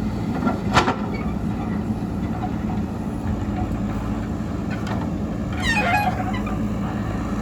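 JCB backhoe loader's diesel engine running steadily, with a sharp knock just under a second in and a brief squeal near six seconds.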